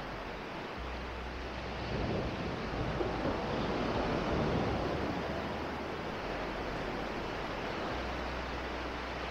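Sea waves washing onto a sandy beach, a steady surf wash that swells about two seconds in and then eases off.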